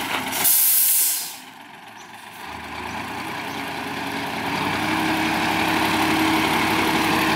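An Isuzu ten-wheeler dump truck lets out a short, loud hiss of compressed air about half a second in. Its diesel engine then speeds up and holds a steady, rising drone as the hydraulic hoist lifts the loaded tipper bed to dump crushed rock.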